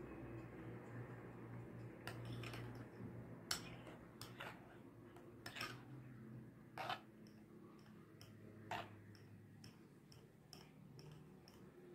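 Metal spoon stirring thin baby cereal in a ceramic bowl, clinking lightly against the bowl's side at uneven intervals, about eight times, over a faint low hum.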